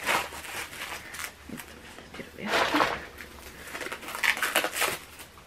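Wrapping being crinkled and torn off a parcelled book, in three spells of rustling, the loudest about halfway through.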